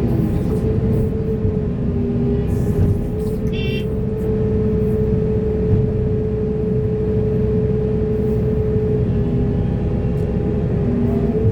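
Heavy diesel excavator engine running steadily under load, with a steady whine throughout and a few short clanks and rattles.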